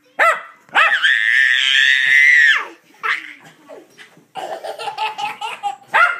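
A toddler's long, high-pitched scream mixed with a small dog's short, sharp barks and yips. Near the end comes a quick run of short choppy cries, then more yelps.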